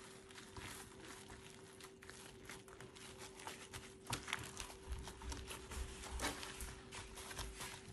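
Faint crinkling and small irregular clicks from gloved hands rolling and pressing a wet, filled sheet of fresh tofu skin, over a steady low hum.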